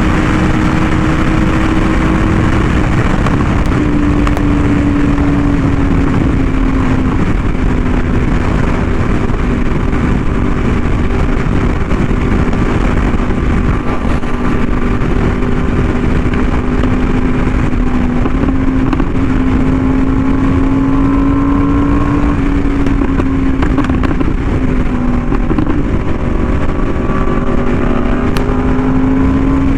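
Yamaha R1M's crossplane inline-four through an SC Project exhaust, cruising at a steady engine speed. The note dips a little and rises again several times with small throttle changes. A constant rush of wind noise runs underneath.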